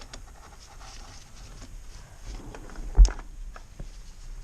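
Light clicks and taps from parts and tools being handled during an oil filter change, with one sharp thump about three seconds in.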